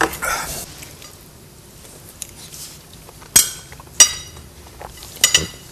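Tableware clinking: two sharp clinks with a brief ring about three and a half and four seconds in, and a couple of lighter knocks near the end.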